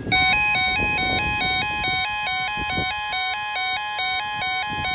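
Electronic emergency alert attention tone: a steady tone with a ringtone-like warble over it, its pitches stepping back and forth about four times a second.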